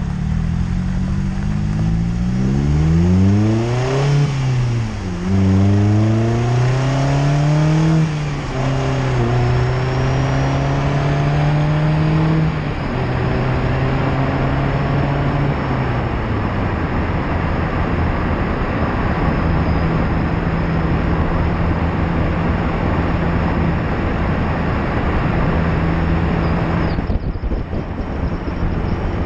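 Mazda MX-5 ND2's four-cylinder engine and exhaust under hard acceleration, pitch climbing and dropping at upshifts about four and eight seconds in, then holding steady and easing off, under loud tire and road noise picked up by a bumper-mounted camera.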